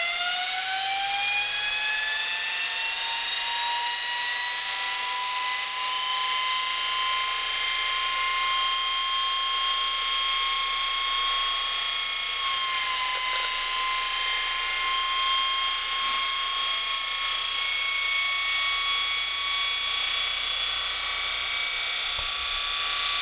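General Electric 9-inch DC electric motor (an early Bradley GTE motor with a steel end bell) running free with no load on 12 volts. Its high whine with many overtones is still rising in pitch over the first few seconds as it spins up, then holds steady, with a brief small dip in pitch about halfway through. It is running clean.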